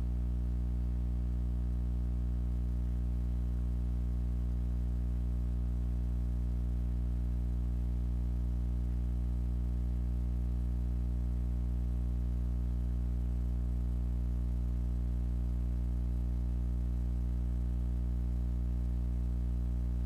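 A steady low hum made of several even tones, with no change in pitch or level.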